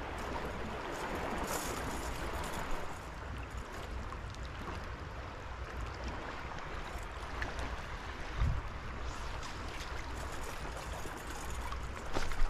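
Stream current flowing steadily around a wading angler, a continuous rush of moving water, with one low thump about eight seconds in.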